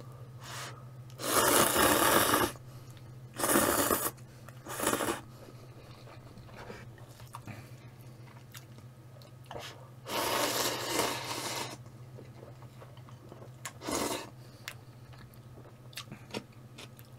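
Instant ramen noodles being slurped and chewed, in several noisy pulls; the longest come about a second in and again around ten seconds in, with small clicks between. A low steady hum runs underneath.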